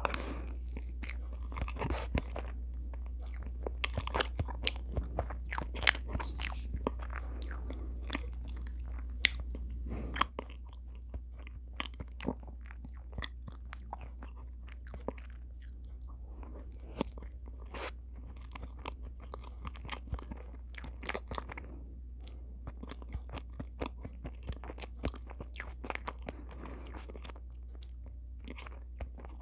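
Close-miked mouth sounds of someone chewing soft cheesecake eaten from a wooden spoon: many short clicks and smacks scattered unevenly.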